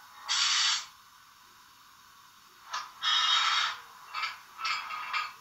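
Sound decoder of a Trix BR 42 model steam locomotive playing steam-hiss effects through its small onboard speaker. About five irregular hissing bursts, thin and without any low end.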